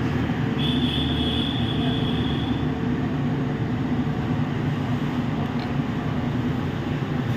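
A steady low mechanical drone of background noise, with a faint high steady tone for about two seconds near the start.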